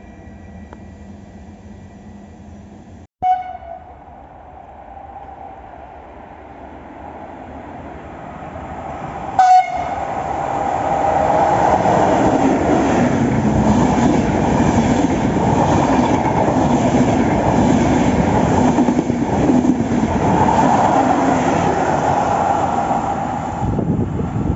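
A train horn giving a short blast, then a passing train: a loud, sustained sound of wheels and traction that builds from about ten seconds in and holds to the end.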